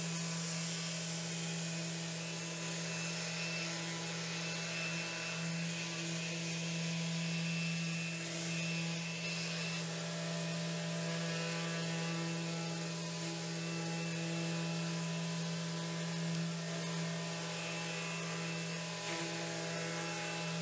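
Electric orbital sander with a rectangular pad and a dust-extraction hose, running steadily with a constant hum as it sands a first coat of waterborne sanding sealer on an oak cabinet door through a Surf Prep foam sanding pad, scuffing it flat before the top coat.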